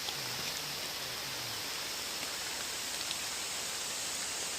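Steady outdoor hiss of water or rain-like noise, with a few faint ticks and a faint low voice in the first second and a half.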